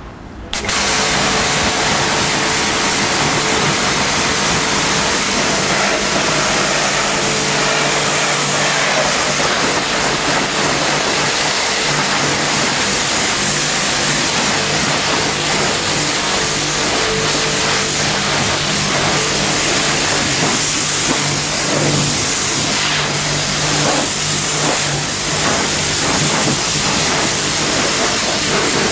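Pressure washer spraying a water jet onto car bodywork, rinsing off snow foam. It starts suddenly about half a second in and then runs steadily as a loud hiss.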